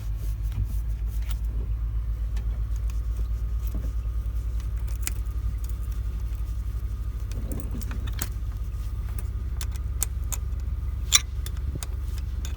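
Ural truck's diesel engine idling with a steady, evenly pulsing low throb, with a few sharp metallic clicks from parts being handled, the loudest one near the end.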